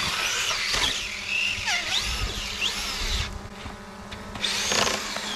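Traxxas Slash RC truck's electric motor whining up and down in pitch as it is punched on and off, driven hard over snowbanks, over a steady low hum. The whine drops away for about a second past the middle, then picks up again.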